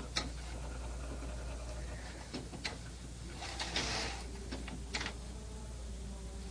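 HP DesignJet T120 inkjet printer printing, its print-head carriage moving back and forth with a faint motor whine, a few sharp clicks and a longer rushing pass about three and a half seconds in.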